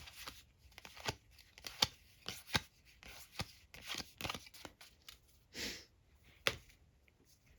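Weiss Schwarz trading cards being handled and flipped through: an irregular run of sharp card clicks and snaps, with a short rustle about two-thirds of the way through.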